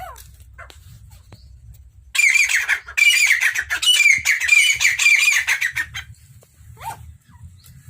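A quail calling loudly in a rapid, harsh squawking chatter for about four seconds, with a short break about a second in. A single short call follows near the end.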